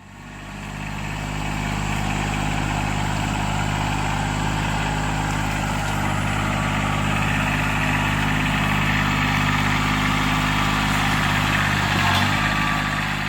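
Engine of brush-clearing machinery running steadily at a constant speed, its pitch shifting briefly about twelve seconds in.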